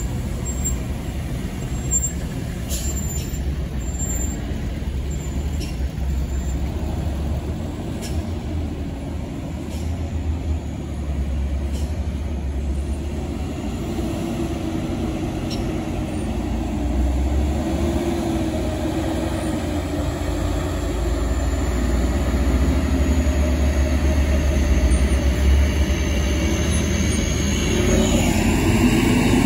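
Road traffic of pickups, cars and diesel trucks passing slowly, with a steady low engine rumble. A diesel truck's engine grows louder as it passes close in the last third, with a high whine rising near the end.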